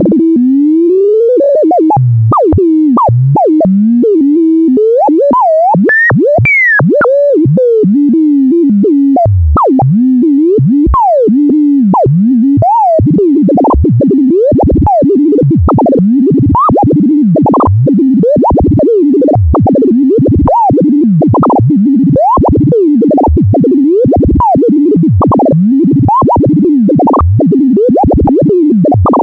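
Make Noise Shared System Eurorack modular synthesizer playing a single pitched tone that glides up and down in slow, wide sweeps. About halfway through it changes to quick repeating swoops, about two a second.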